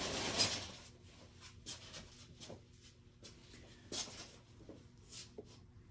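Faint handling noises from a partly disassembled airsoft rifle: a short rustle at the start, then scattered light clicks and taps of a small tool, an Allen wrench used as a punch, against its parts.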